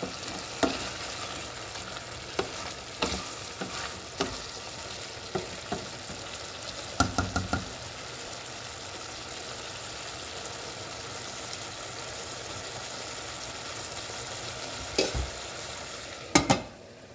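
Beetroot curry in coconut milk sizzling in a stainless-steel pot while a spoon stirs it, with clicks and scrapes of the spoon against the pot and a quick run of four taps about seven seconds in. Near the end a glass lid clatters onto the pot and the sizzle drops away.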